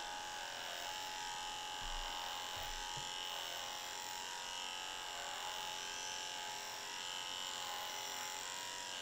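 Electric dog grooming clippers running with a steady hum as they trim a Bernedoodle puppy's hair around his rear in a sanitary trim. A couple of soft bumps come about two to three seconds in.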